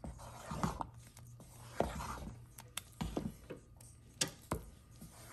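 Wooden spoon beating thick Haitian cornmeal (mayi moulen) in a pot: soft wet stirring with irregular clicks and knocks of the spoon against the pot, a handful of them a second or so apart.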